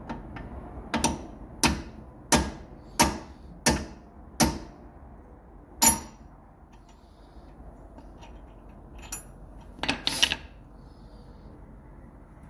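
Hammer blows on metal, tapping a new extended wheel stud into the wheel hub: six evenly paced ringing strikes, then a single one and a quick cluster of two or three near the end.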